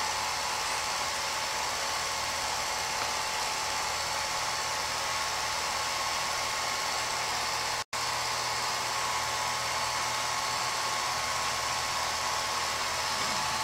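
A home-movie film projector running: a steady mechanical whir with hiss and a low hum, which cuts out for an instant about eight seconds in.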